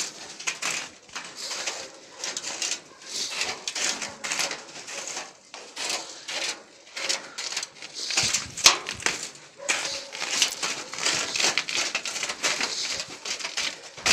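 Footsteps crunching through snow on snow-covered metal stairs, with scuffs, knocks and clothing rustle as someone climbs down. A sharper knock comes a little past halfway.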